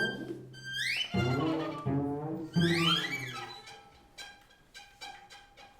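String quartet playing contemporary chamber music: violins sweep up in rising glissandi over low held cello notes, then the texture thins to quiet, short detached notes.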